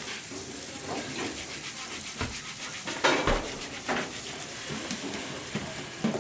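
Tap water spraying into a stainless steel sink while abalone are scrubbed clean with a brush, with a few louder scrapes and knocks of shells against the sink and strainer.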